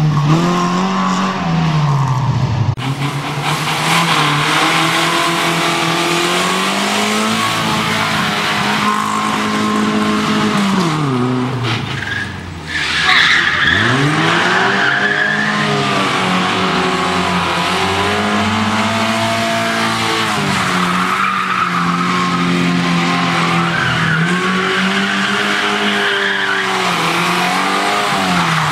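FSO Polonez rally car's engine revving hard and dropping back again and again as the car is thrown around cones, with tyres squealing in the turns. The engine pitch climbs and falls many times over, and the sound changes abruptly twice.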